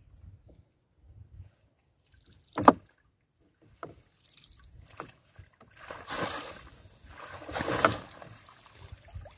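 Fishing net with floats being hauled by hand into a small outrigger boat: soft low knocks against the hull, one sharp knock about two and a half seconds in, then two bursts of splashing and rustling near the end as the wet net is lifted and shaken out.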